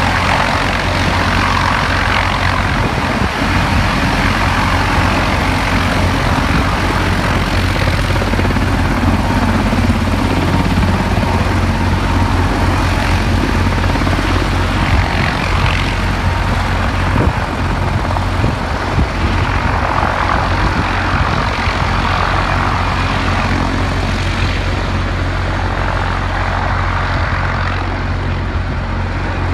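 Mi-26 heavy-lift helicopter running on the ground, its twin turboshaft engines and slowly turning eight-blade main rotor making a loud, steady drone with a low hum underneath.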